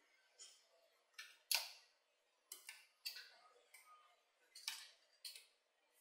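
Small magnetic balls clicking against one another as fingers press them into place on a built model: scattered sharp clicks, about eight of them, the loudest about a second and a half in.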